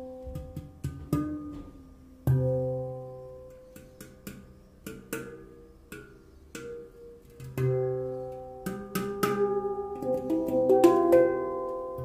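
Tala handpan in the Onoleo C scale played with the fingertips: ringing steel notes that sustain and fade, with a deep low note struck about two seconds in and again near eight seconds, and a quick run of light taps near the end.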